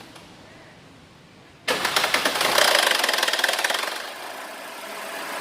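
Mercedes C180 engine started after sitting, catching about a second and a half in with a loud, fast rattle for about two seconds before settling into idle. This start-up noise is what the mechanic diagnoses as probably a faulty pulley.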